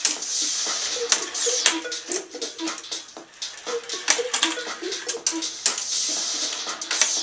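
Magnext icoaster toy running: balls rolling along the plastic track with a rushing hiss that swells and fades, and frequent sharp clicks as they knock through the track pieces. Under it runs a low two-note pattern that repeats about twice a second.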